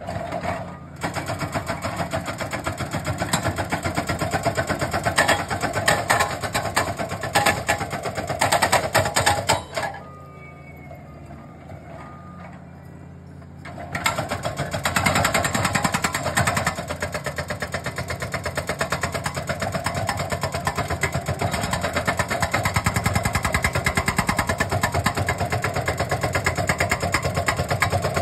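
Hydraulic breaker on a Bobcat compact track loader hammering rock in a rapid, continuous stream of blows over the loader's running diesel engine. The hammering stops for about four seconds near the middle, leaving only the engine, then starts again.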